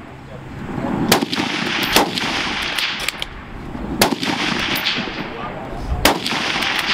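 Gunshots outdoors: four sharp reports, about one, two, four and six seconds in, each trailing off in echo.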